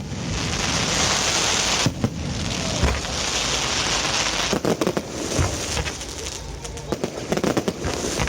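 Aerial fireworks crackling densely for about four seconds, with two sharp bangs in the midst, then rapid clusters of pops and reports.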